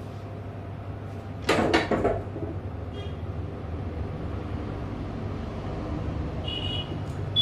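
A compact digital camera being handled: a brief clatter of a few knocks about a second and a half in, then short high electronic beeps near the end, over a steady low hum.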